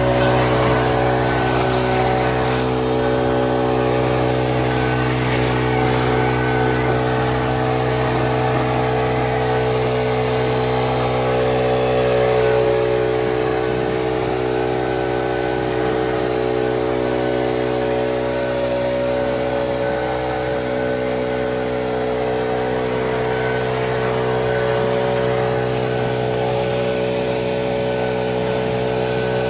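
Gas backpack leaf blower's two-stroke engine running at a steady high speed, close to the microphone.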